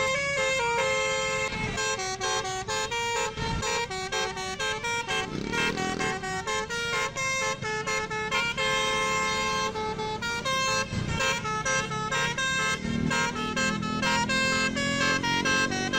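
Bus 'telolet basuri' melody horn playing a tune: a fast run of multi-pitched horn notes that step up and down several times a second. A deeper rising tone joins about three seconds before the end.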